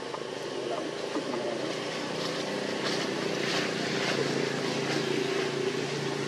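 A steady engine drone, holding one pitch and growing louder from about two seconds in, over a faint outdoor hiss.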